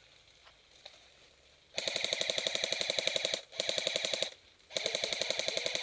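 Airsoft gun firing on full auto in three bursts: a long one from just under two seconds in, a short one, then a third running to the end. Each burst is a fast, even rattle of about fifteen shots a second over a steady high mechanical whine.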